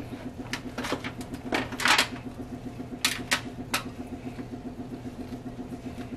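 Spatula scraping sticky marshmallow-and-rice-cereal mixture out of a pot into a foil baking pan: several short scrapes and clunks in the first four seconds, over a steady low hum.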